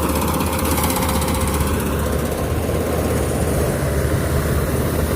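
Rice combine harvester's engine running steadily under load, a constant low hum with dense mechanical clatter above it.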